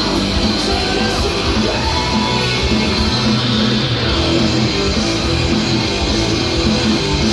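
Loud rock music led by guitar, dense and continuous with a heavy low end.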